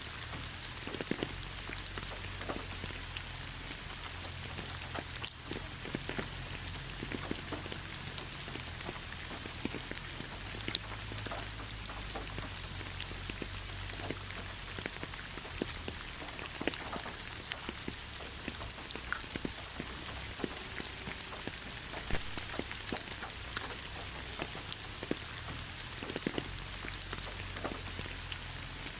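Steady rain falling, a constant hiss with many individual drops ticking sharply on a surface, over a low steady rumble.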